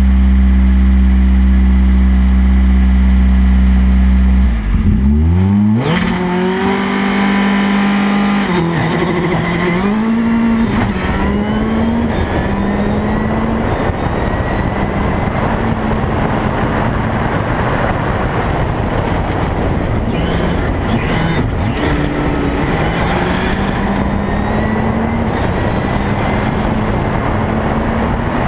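A rally car accelerates hard through the gears on a gravel road. The engine note climbs and drops back with each quick upshift over a steady hiss of tyres on gravel. It eases off about two-thirds of the way through, then pulls up again. A loud steady drone fills the first five seconds and cuts off just before the car pulls away.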